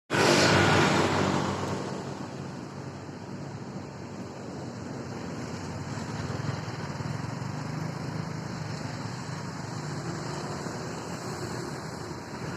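Bus engine and road noise: loud with a pitched engine note for the first second or two, then fading to a steady rumble with wind noise.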